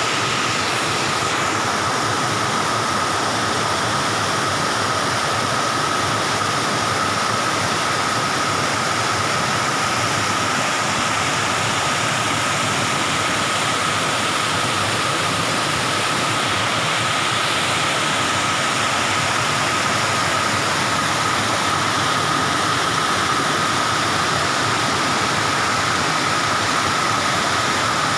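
Waterfall rushing in a steady, even roar of falling water, with a faint steady high-pitched tone over it.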